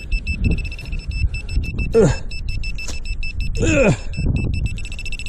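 Metal detector buzzing on a metal target: a steady, rapidly pulsing high tone that cuts off near the end. A man gives two short falling grunts, about two and four seconds in.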